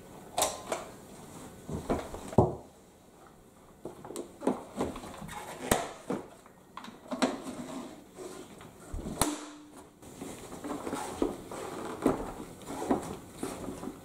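Plastic clicks, knocks and clatter as a Numatic Hetty vacuum cleaner's motor head is handled and lifted off its tub, with one loud knock about two seconds in. Quieter rubbing and handling noises follow near the end.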